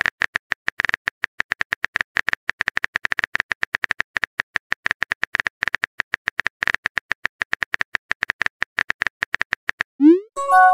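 Texting-app keyboard sound effect: a quick, uneven run of short typing clicks as a message is typed. Near the end comes a rising pop and a short chime of a few held tones, the message-sent sound and the loudest moment.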